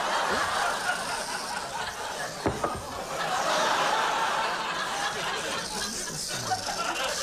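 A large studio audience laughing steadily.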